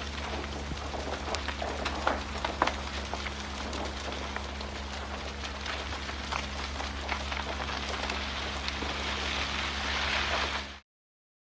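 A burning barn: the big fire crackling, a steady rushing noise full of sharp pops and snaps.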